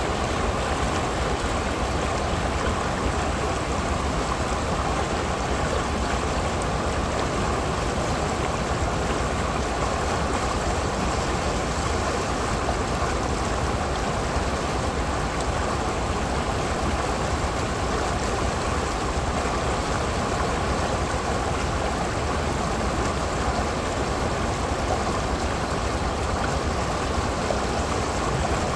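Shallow creek water rushing over a rock ledge and breaking into white water: a steady, unbroken splashing rush.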